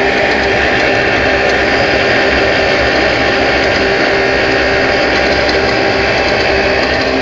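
Home-built waste motor oil heater running, a steady mechanical noise of its fan and burner with a faint hum under it.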